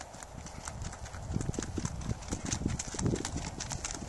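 Hoofbeats of an Icelandic horse on a gravel track: a quick, even beat of about four strikes a second, getting louder as the horse comes closer.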